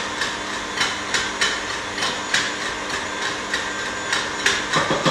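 Hand spice grinder being twisted to grind dried chili pepper, giving a dry crunchy click with each turn, about two a second.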